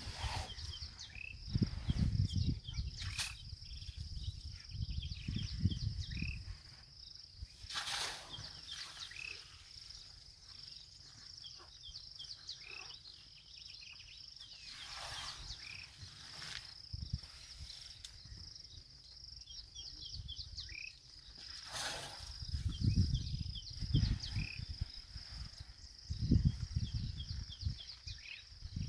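Steady high-pitched insect drone with scattered bird chirps, a few sharp knocks, and bursts of low rumbling noise a couple of seconds in and again near the end.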